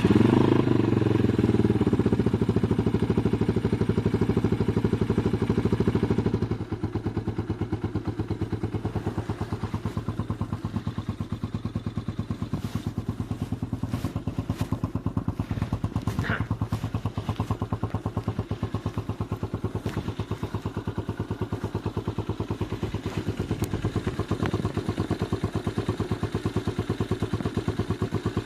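Skygo Boss 150 motorcycle's single-cylinder engine, fitted with a bottle pipe exhaust, Nibbi PE26 carburettor and pod filter, running just after a cold start. It runs at a higher, louder idle for about the first six seconds, then drops to a lower, steady cold idle with an even, rapid pulse.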